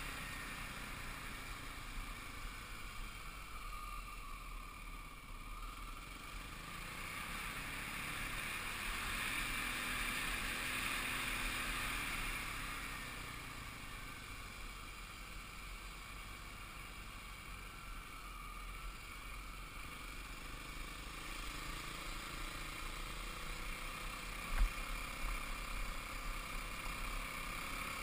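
Kawasaki KLX250 single-cylinder four-stroke dirt bike engine running under way, heard from an onboard camera with wind rumbling on the microphone. It grows louder about a third of the way in, then eases off, and a single sharp knock comes near the end.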